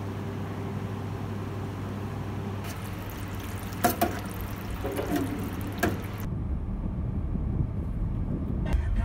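A pot of liquid at a rolling boil, hissing steadily over a low hum. Just under three seconds in it gives way to sharp clinks and scraping against a stainless-steel tray as the mixture is stirred with sugar. A little past six seconds that is replaced by the low rumble of a car cabin.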